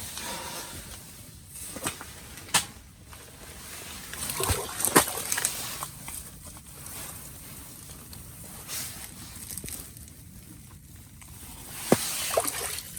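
Scattered sharp knocks with sloshing slush and water at a hole in lake ice (about 7 inches thick) as its thickness is checked; the loudest knocks come about two and a half, five and twelve seconds in.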